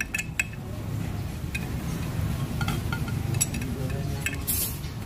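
Light metallic clicks and clinks, scattered and irregular, as the bare engine is handled and its crankshaft and degree wheel are turned by hand, over a steady low rumble. A short hiss comes near the end.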